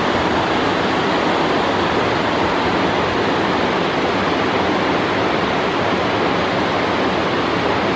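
Waterfalls cascading over travertine ledges into pools: a steady, even rush of falling water.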